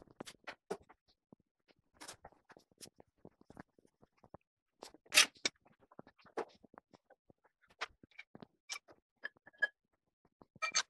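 Scattered metal clanks, knocks and clicks as a heavy cast-iron steady rest is handled and set onto a lathe bed. The loudest knock comes about five seconds in, and a few short ringing metal clinks follow near the end.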